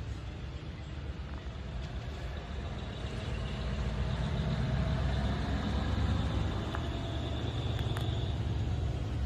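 A low, steady engine rumble of an idling truck, growing louder about four seconds in.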